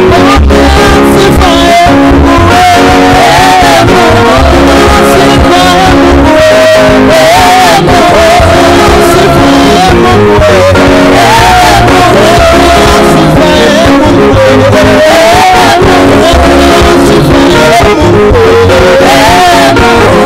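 Live church praise and worship singing: a man leads into a microphone and women sing with him, over band accompaniment with guitar and bass.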